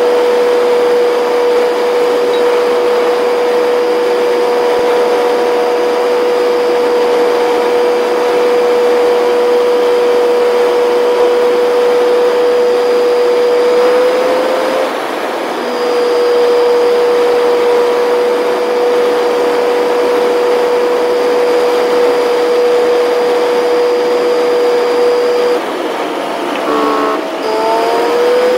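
Inside a pickup truck's cab at highway speed: a steady, high whine over road and wind hiss. About halfway through the whine rises slightly and breaks off briefly, and near the end it drops out and returns in short sliding pitches as the speed changes.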